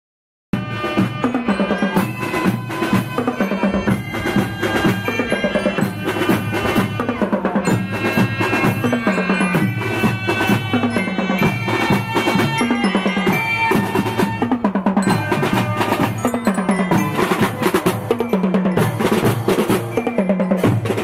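Children's marching drum band playing: bass and snare drums keep a steady beat under a melody on marching glockenspiels (bell lyras). It starts about half a second in after a moment of silence.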